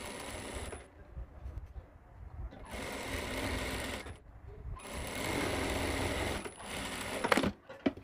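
A TYPICAL industrial lockstitch sewing machine stitches a narrow pintuck in cotton fabric. It runs in three short bursts with brief stops between them, and a faint high motor whine rides on each run. A few clicks of the cloth being handled come near the end.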